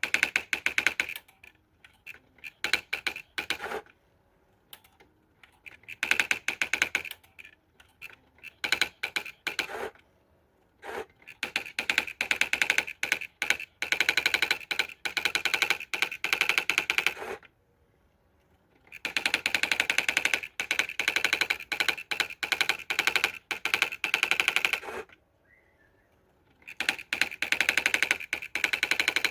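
Olivetti ET Personal 55 electronic daisy-wheel typewriter printing its built-in auto-demo. Rapid runs of strikes, some short and some lasting several seconds, are separated by brief pauses.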